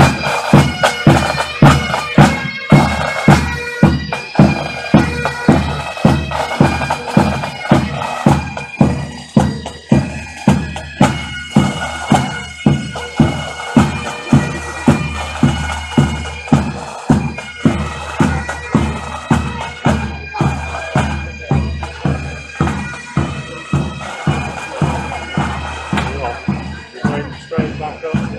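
Military pipes and drums band playing a march: bagpipes sounding a steady melody over their drones, with the drums beating about twice a second.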